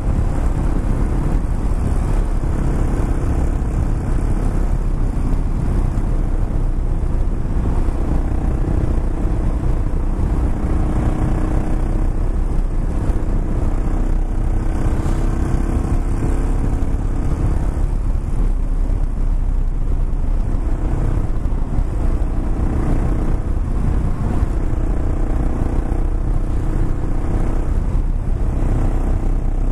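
Kawasaki KLR 650's single-cylinder engine running steadily under way, heard from the rider's position, mixed with road and wind noise.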